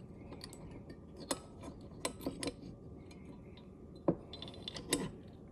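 Light metal clicks and taps of Geissele trigger parts being set down into an AR-15 lower receiver, half a dozen scattered clicks with the sharpest about four seconds in.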